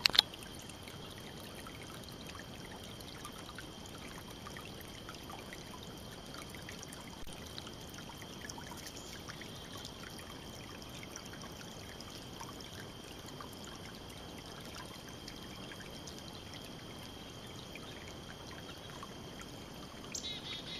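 Steady outdoor background: an even hiss with a continuous high-pitched whine and scattered faint ticks, a short knock at the very start and a brief high chirping near the end.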